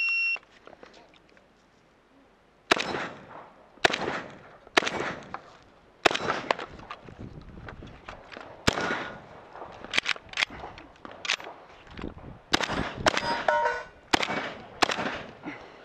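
A shot timer beeps briefly. After a pause of about two and a half seconds, an AK-style magazine-fed semi-automatic shotgun fires a rapid string of shots, about one a second and at times two in quick succession. Some shots are followed by the short ring of steel targets being hit.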